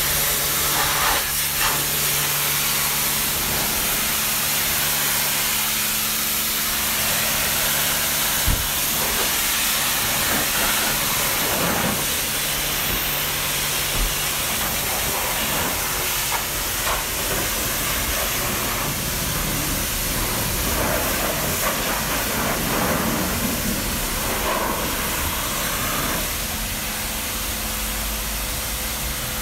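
Pressure-washer lance spraying water against a car's side panels and sills: a steady hiss with a faint low hum beneath it.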